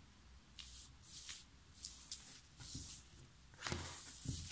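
Tarot cards being gathered up and slid across a tabletop: several short, soft papery swishes, with a couple of light taps near the end.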